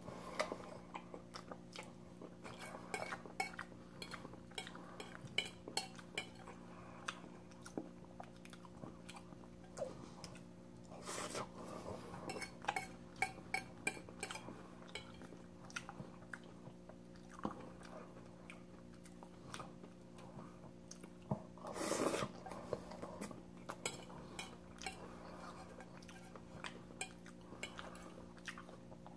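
A person quietly eating pasta: chewing and slurping, with small clicks and scrapes of a fork on a plate, over a low steady hum.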